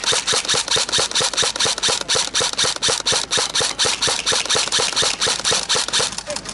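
Airsoft electric gun (AEG) firing a steady string of shots, about six a second, as sharp mechanical clicks, stopping suddenly at the end.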